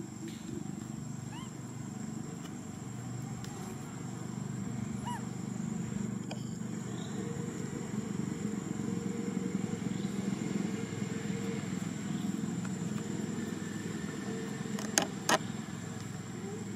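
Steady low rumble of a running motor vehicle engine, swelling slightly midway, with two sharp clicks near the end.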